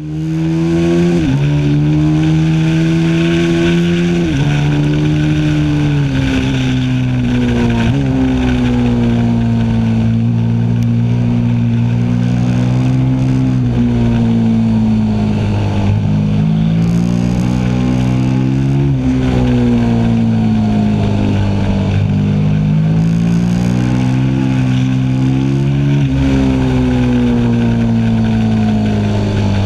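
KTM 1290 Super Duke R's 1301 cc V-twin running hard under acceleration. Its pitch climbs and falls with the throttle, with sudden drops about one, four and eight seconds in as it shifts up a gear.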